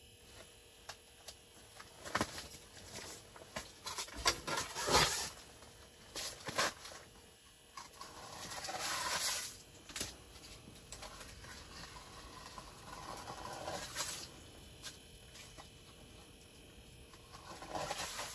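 Scattered knocks and clicks of gear being handled on the ice, then several swishing scrapes as a long-handled plastic ice skimmer scoops slush and ice chips out of an ice fishing hole.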